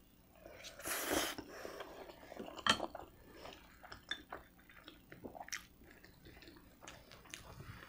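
Close-miked eating of spaghetti. A short noisy slurp comes about a second in, then a sharp clack of tableware being set down near the three-second mark, then soft chewing with small wet mouth clicks.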